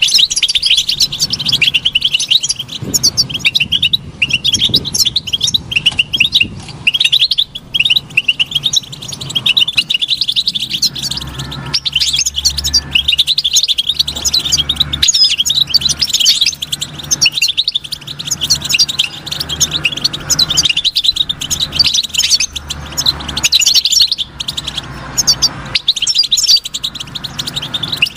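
European goldfinch singing: a fast, unbroken twittering of high chirps and trills.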